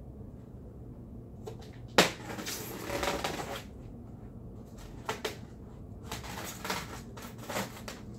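Cardboard box and packaging being handled and opened: a sharp knock about two seconds in, then scraping and rustling, a couple of short clicks, and more rustling near the end.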